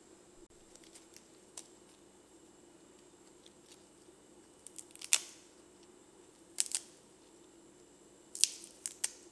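Crisp lettuce leaves crackling as a hand sets them on a plate: a few faint ticks early on, then three short clusters of sharp crackles, about five seconds in, a second and a half later, and near the end, over a faint steady hum.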